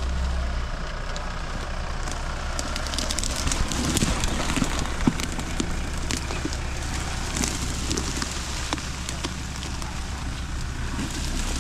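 Off-road 4x4 engine running at low revs, a steady low hum, under a continuous crackling with many short clicks and one sharper click about five seconds in.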